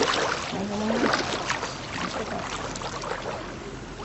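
Water splashing and sloshing, with a short bit of a person's voice about half a second in.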